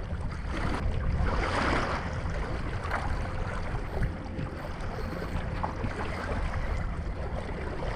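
Water sloshing and splashing against a fishing kayak's hull with a steady wind rumble on the microphone; a louder splash comes about a second and a half in.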